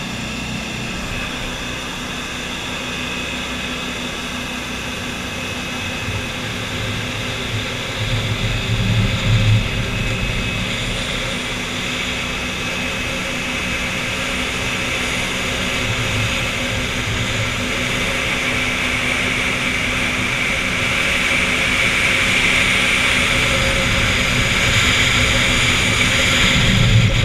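30-foot New Zealand-style jet boat running at speed: a steady engine drone with water rushing beneath it, growing gradually louder toward the end.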